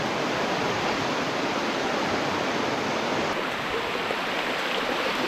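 Mountain valley stream water flowing steadily, a constant rushing hiss that turns slightly duller about three seconds in.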